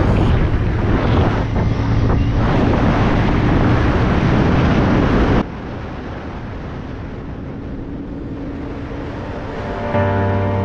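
Wind buffeting the microphone over the steady hum of a Bajaj Pulsar 150's single-cylinder engine at cruising speed. The wind noise drops off suddenly about halfway through, leaving a quieter engine hum, and music comes in near the end.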